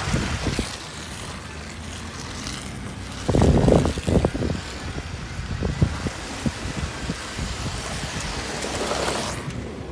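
Truck driving through deep mud ruts: tyres splashing and churning, with mud and water spattering against the body. A cluster of heavy knocks and thumps comes about three and a half seconds in, with scattered single knocks after.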